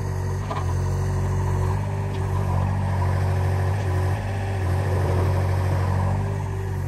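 Compact diesel machine engine running steadily.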